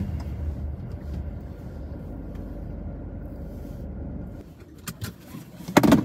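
Low, steady rumble of a car driving slowly, heard from inside the cabin. It dies away about four and a half seconds in, and a few soft clicks follow.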